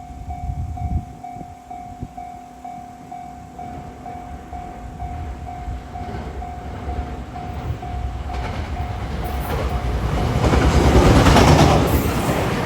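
Japanese level-crossing alarm ringing in steady repeated strokes, about three a second. A train then approaches and passes, its wheel and rail noise building to a peak near the end and covering the alarm.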